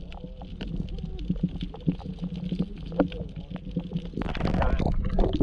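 Muffled underwater sound picked up by a camera held below the surface: a low rumble with scattered sharp clicks and crackles, swelling into a rush of water about four seconds in.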